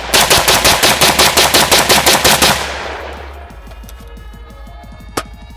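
300 Blackout AR-15 pistol fired in rapid succession, a fast string of about twenty shots in under three seconds, fading out in echo; one more sharp crack comes about five seconds in.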